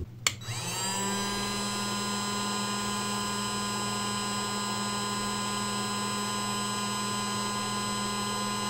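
Parkside PHLGA 20-Li A1 cordless hot air gun running on its half-power setting: a click, then its fan whine rises in pitch over about a second and settles into a steady whine with several tones.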